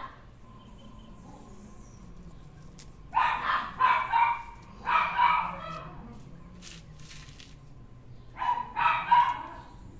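A dog barking off and on in three short bouts of high yaps, about three seconds in, around the middle, and near the end.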